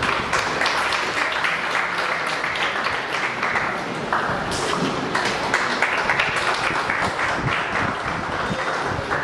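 Audience applauding steadily, many hands clapping at once in a hall.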